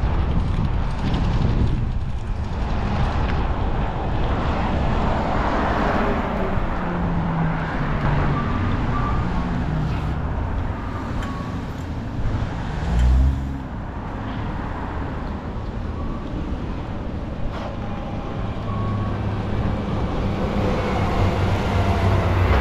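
Steady low rumble of road traffic and outdoor noise, with a brief louder thump about 13 seconds in.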